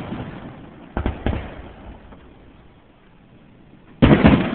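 Fireworks going off, recorded on a phone's microphone. The fading tail of one bang, two sharp bangs about a second in, a lull, then a loud burst of bangs near the end.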